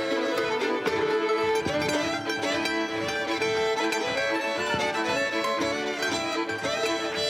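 Live contra dance band playing a fiddle-led dance tune with a steady, even beat.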